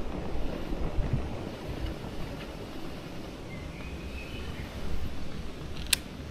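Wind rushing over an action camera's microphone on a moving bicycle, a steady low rumble and hiss, with a single sharp click near the end.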